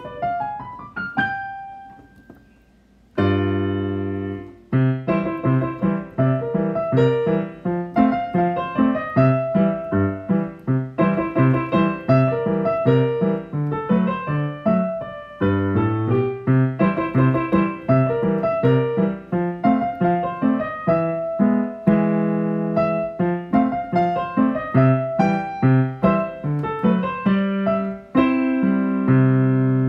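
Digital piano playing a ragtime piece, low bass notes alternating with chords under a busy melody in a steady rhythm. Near the start the playing pauses briefly with notes dying away, then resumes with a loud chord about three seconds in.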